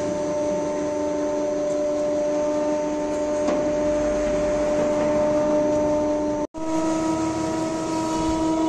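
Electric soap plodder running steadily as it extrudes soap into fine noodles, a constant machine hum with several fixed tones. The hum breaks off for an instant about six and a half seconds in and resumes at a slightly higher pitch.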